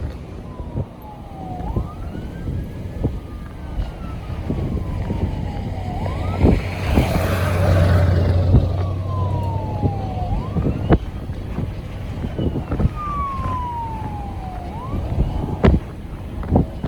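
Emergency vehicle siren wailing, each cycle rising quickly and falling slowly over a few seconds, over steady wind noise with occasional knocks. About halfway through, a heavy vehicle passes close with a loud low rumble.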